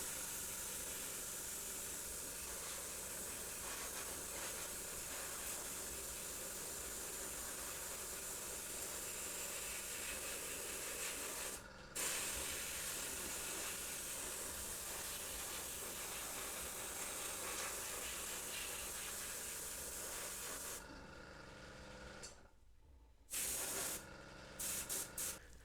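Airbrush spraying paint in a steady hiss, broken off for a moment about halfway through. It stops a few seconds before the end, after which come a few short spurts.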